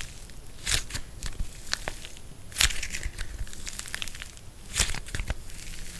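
Dried plaster clay being pressed and cracked, a run of dry crackles and crunches with three louder cracks roughly two seconds apart.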